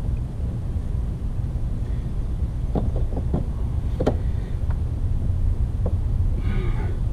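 A few light clicks and taps as the mower's tubular metal handle is handled and lined up for welding, over a steady low rumble.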